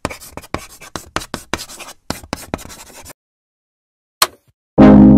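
Chalk writing on a chalkboard: a quick, irregular run of short scratchy strokes for about three seconds. Then a brief silence, a single tap, and guitar music that starts just before the end.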